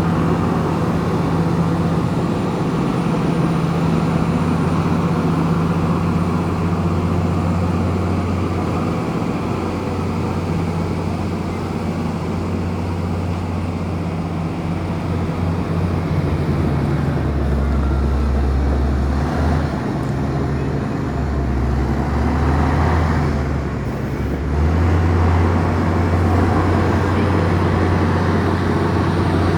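Komatsu bulldozer's diesel engine running steadily. Past the middle its note drops lower for several seconds, then rises back.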